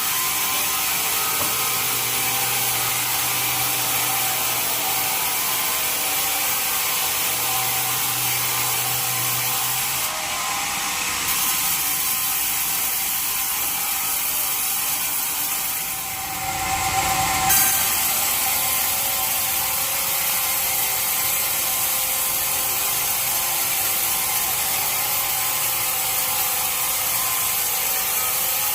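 Bandsaw cutting teak wood: a steady, hissing mechanical run, with a brief louder burst about two-thirds of the way through.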